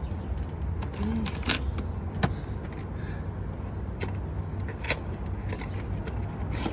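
A few sharp clicks and knocks, scattered over several seconds, over a steady low hum.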